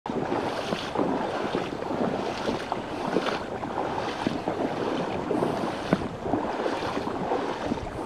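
Water splashing and sloshing, with many small crackles, swelling about once a second.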